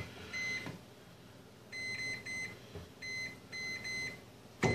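Microwave oven's electronic beeper sounding short high beeps in several small groups, as its keypad is pressed to set it running.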